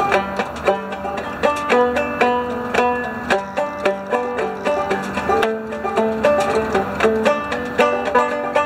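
Five-string open-back banjo played clawhammer style: a steady, quick run of plucked notes.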